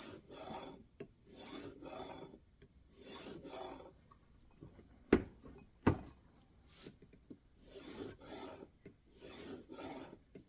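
A 3000-grit diamond sharpening plate rasping along a knife's steel edge in a guided sharpening system, in short repeated strokes, mostly in pairs, with brief pauses. About halfway through come two sharp knocks, louder than the strokes.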